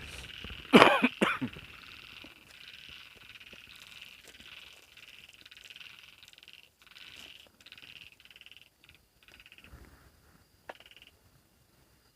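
Frogs calling at night: two loud croaks close by, about a second in, over a steady pulsing chorus that stops near the end.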